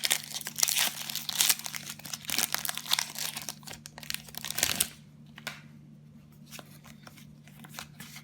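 Foil Pokémon booster pack wrapper being torn open and crinkled by hand, a dense crackling rustle. It dies down about five seconds in, leaving only a few faint clicks of handling.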